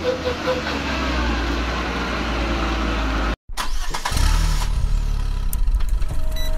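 Tanker truck's diesel engine working under load on a wet climb while its drive wheels spin, with a steady rushing noise over a low drone; the truck is stuck on the incline and its tyres are smoking. The sound cuts off abruptly a little over three seconds in, and a different low, pulsing sound takes over.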